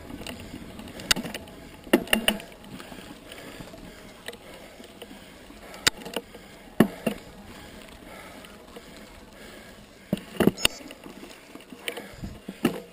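Mountain bike rolling along a dirt trail: a steady rumble of tyres and motion, broken by sharp knocks and rattles from the bike as it goes over bumps, about nine of them at irregular intervals.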